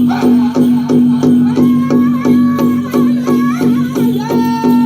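Powwow drum group playing a chicken dance song: a big drum beaten in a steady, even beat of about three strokes a second. High-pitched singing comes in over the drum about one and a half seconds in.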